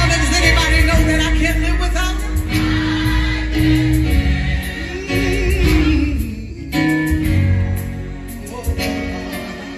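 Gospel choir singing in full harmony with band accompaniment and a deep bass underneath, the voices holding long notes; about five seconds in a voice sings with a wide vibrato, and the sound thins briefly near the seven-second mark before the full choir comes back.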